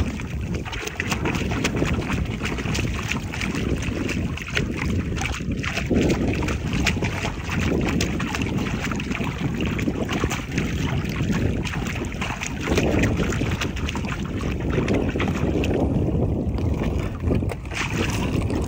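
Seawater swirling and splashing against shore rocks and around hands holding a fish in the shallows, with many small sharp splashes, and wind noise on the microphone.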